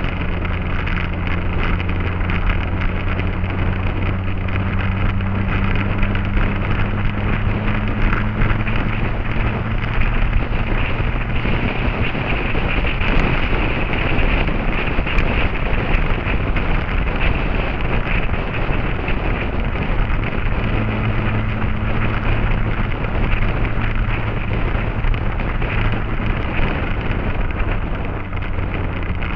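Motorcycle engine running at a steady cruising speed, its note rising slowly at first, mixed with heavy wind noise on the microphone. The engine note drops under the wind noise through the middle and comes back near the end.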